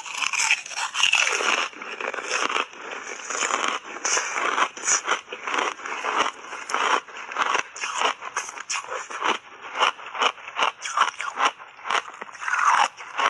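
Crunchy ice chips coated in matcha powder being bitten and chewed, a fast, irregular run of sharp crunches.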